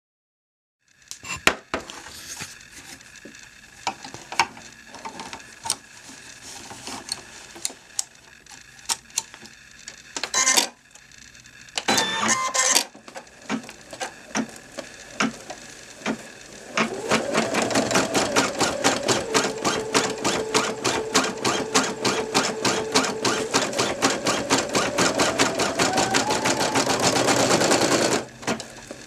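Brother computerized embroidery machine: a spell of clicks and short mechanical whirs, then about halfway in it starts stitching at speed, a rapid even needle tapping over the motor's hum. The motor's pitch rises slightly before it stops shortly before the end.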